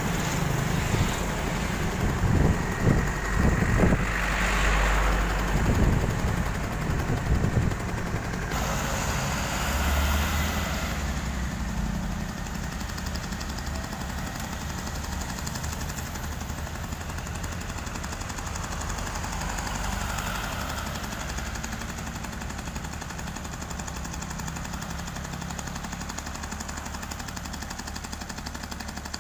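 Komatsu PC78US excavator's diesel engine idling steadily while a hydraulic breaker is fitted to the arm. Irregular knocks and clanks come over the engine in the first eight seconds or so, then the idle runs on alone.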